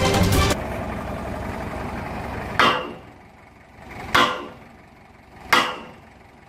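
Sledgehammer blows on the steel of a water-well drilling rig: three ringing metal clangs about a second and a half apart, over the steady hum of the rig's engine running. Music cuts off about half a second in.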